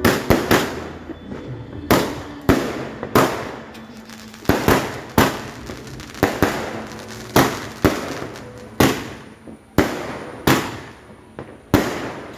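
Fireworks going off in a rapid string of sharp bangs, about one or two a second, each trailing off quickly.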